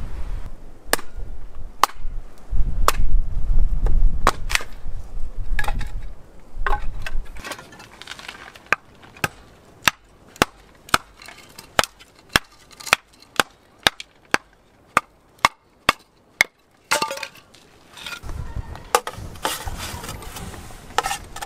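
Wind buffeting the microphone for the first several seconds, then a hatchet splitting kindling on a wooden chopping block: a run of sharp, regular strikes, about two a second. Near the end the strikes stop and mixed noise follows.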